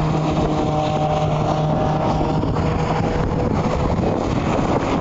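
Car engine running at a steady speed, holding one even pitch with no revving, with wind buffeting the microphone.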